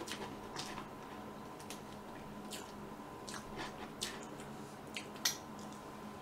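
Metal fork scooping a soft cream dessert out of a foil tray, with scattered light clicks and scrapes, mixed with close-up wet biting and chewing.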